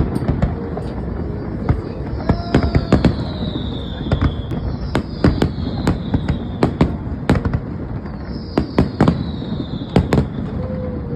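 Fireworks going off: many sharp bangs at irregular intervals over a steady low rumble, with a high whistle falling in pitch about every three seconds.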